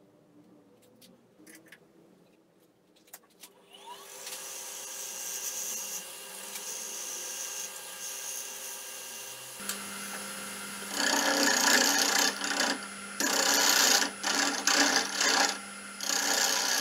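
Wood lathe starting up about four seconds in and running steadily, spinning a red carob (algarrobo) blank while a tool is pressed into its centre. From about ten seconds in, a turning gouge cuts into the spinning end grain in repeated loud strokes, each a harsh scraping rush, as the vase is hollowed.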